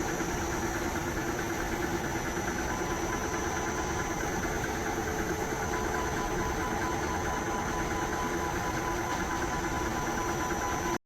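Drilling-milling-tapping machine running steadily: an even motor and spindle hum with several steady whining tones over a mechanical noise. It cuts off abruptly at the very end.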